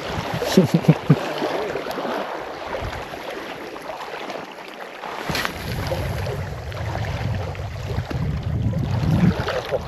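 Wind buffeting the microphone at the lakeside: an uneven rushing with low rumble. Faint voices come briefly about a second in, and there is a single sharp click about five seconds in.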